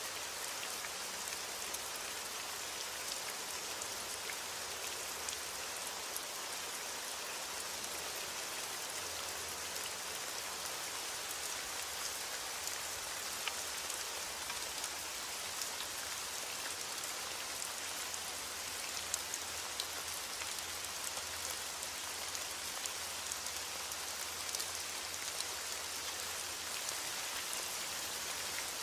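Heavy rain falling steadily on a window, with scattered small sharp ticks through the steady patter.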